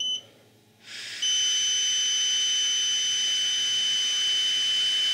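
Alcosense Zero digital breathalyser: a short beep, then about a second in a steady blow of breath through its mouthpiece, with the unit sounding one continuous high beep while it takes the breath sample.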